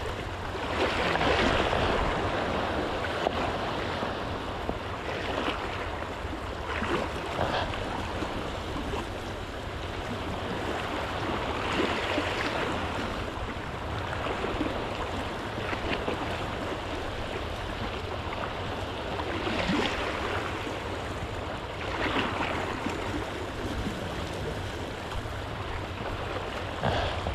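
Small sea waves washing and splashing over shoreline rocks. The wash is steady and swells every several seconds, loudest about a second or two in.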